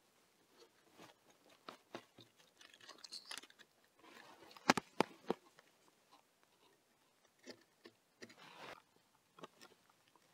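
Faint scraping and crunching of hand work at the base of a wooden post on a stone footing, as wooden shims are fitted and a trowel works mortar under the post. A few sharp taps come about halfway through.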